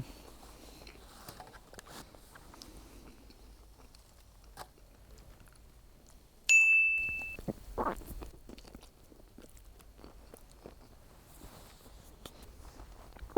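Close-up chewing and mouth sounds of someone eating sushi, faint wet clicks throughout. About six and a half seconds in, a single short, high-pitched ding starts suddenly and is the loudest sound.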